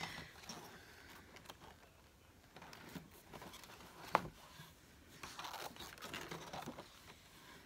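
Paper pages of a spiral-bound book being turned and handled, with soft rustling and one sharp tap about four seconds in.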